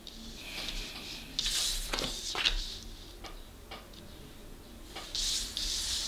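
Tarot cards being handled on a tabletop: short papery swishes of cards sliding against each other and across the table, a longer one about a second and a half in and another near the end, with light taps between.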